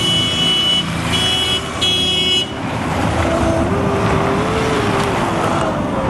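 A motor vehicle passing on the road, its engine note rising and then falling, over loud road noise. In the first two and a half seconds a high steady tone sounds three times.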